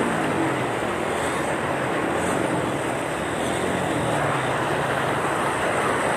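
Floodwater rushing hard across a road, a steady churning wash of fast-flowing water.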